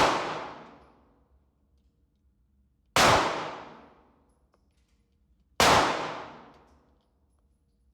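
Three gunshots at a shooting range: one right at the start, one about three seconds in and one a little over five seconds in. Each is a sudden loud crack whose echo dies away over about a second.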